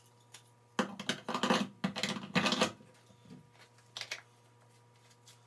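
Grinder discs and cutoff wheels clicking and rattling in their plastic pack as it is handled: a quick run of clicks for about two seconds starting about a second in, then one more click a little later.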